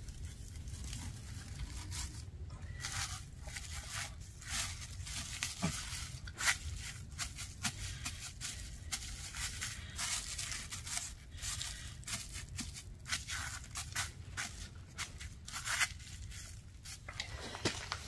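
Packing tape being pulled off the roll and torn, in quick irregular rips and crinkles over a low steady hum.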